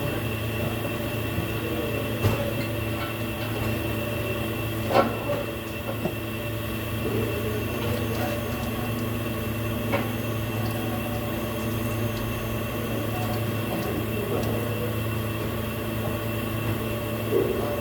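Steady mechanical hum, with a few short sharp metal clinks.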